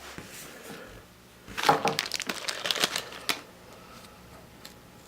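Crinkling and cracking of thin plastic packaging in a dense burst of about two seconds, starting about a second and a half in, as a small plastic blind-box toy egg is handled and opened, with a few lighter handling ticks around it.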